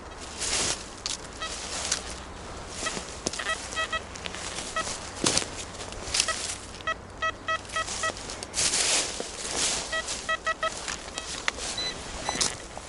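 Rustling and crunching in a windy forest, with gusts through the trees, and several quick runs of short, high beeps.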